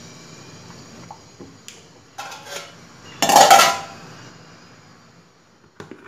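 Tapioca pieces stirred with a spoon in a steel pot of boiling water, with small clinks. About three seconds in, an aluminium plate is set over the pot as a lid with one loud metal clatter that rings briefly.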